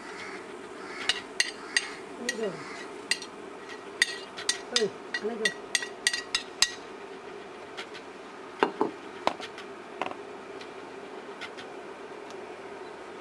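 Metal spoon clinking and scraping against a cooking pot while jaggery is added and stirred into the boiling decoction. A quick run of light, ringing knocks lasts several seconds, and a few more follow later, over a steady low hum.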